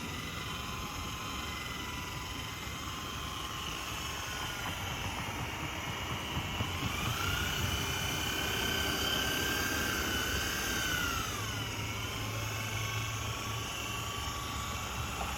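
Electric polisher spinning a buffing wheel, its motor giving a steady whine that rises in pitch about seven seconds in, holds, then drops back near twelve seconds.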